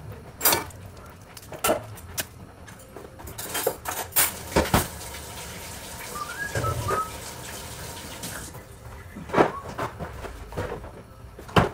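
Kitchen handling noise: scattered knocks and clinks of dishes and cookware. A short, high, wavering whistle-like sound comes about six and a half seconds in.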